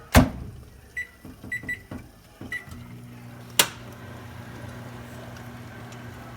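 Microwave oven being started: a sharp clack, four short keypad beeps, then the oven begins running with a steady low hum about three seconds in, with another click just after it starts.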